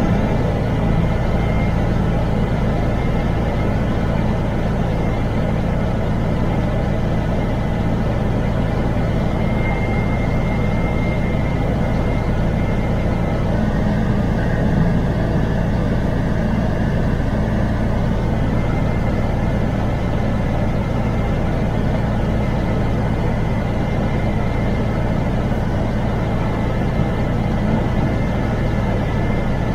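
MAN TGX truck's diesel engine running steadily under road noise, with a faint high whine coming and going in it.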